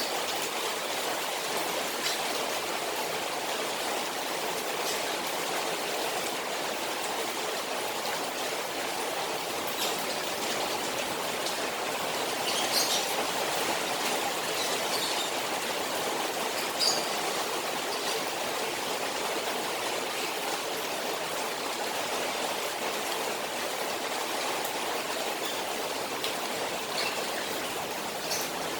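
Rain falling on a koi pond, a steady even rush of water and pattering. A few brief higher-pitched sounds stand out about halfway through.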